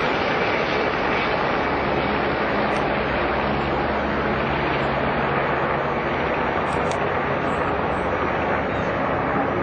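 Helicopter flying low overhead: a steady drone of engine and rotor at an even level.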